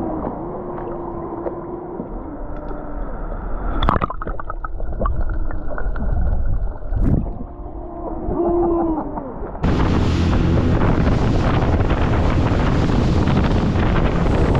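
Muffled, underwater-sounding audio: gurgling water with long wavering tones that bend up and down, and two sharp knocks. About ten seconds in it cuts off suddenly to steady wind buffeting the microphone.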